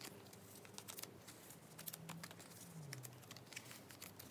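Faint rustling and light clicks of photocards being shuffled in the hand and slid into a binder's plastic sleeve pocket.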